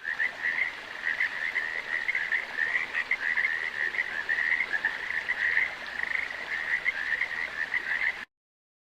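Frogs croaking in a continuous, rapidly pulsing chorus that cuts off suddenly about eight seconds in.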